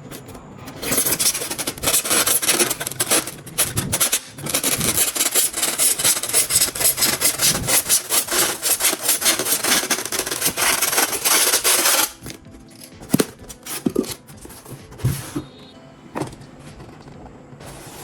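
Rapid, rough rasping strokes of a tool working a material, lasting about eleven seconds and stopping suddenly; a few scattered knocks and clicks follow.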